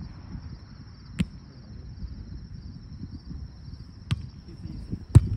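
Three sharp slaps of a beach volleyball being hit during a rally, about a second in, near four seconds and just after five seconds, the last one the loudest.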